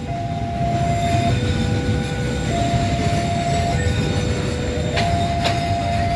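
Loaded cement freight wagons rumbling steadily past on the rails, with two sharp wheel clacks about five seconds in. Over it, the level-crossing warning alarm sounds two alternating tones, switching about every second.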